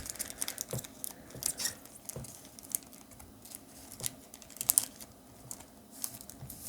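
Foil booster pack wrappers and trading cards being handled: a run of light crinkles and small scattered clicks.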